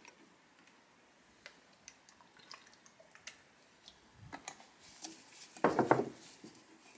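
Oil-based wood stain poured from a metal tin into a plastic pot, with light handling clicks and small drips and splashes. Near the end, a short knocking thud as the tin is set back down on a wooden bench, the loudest sound.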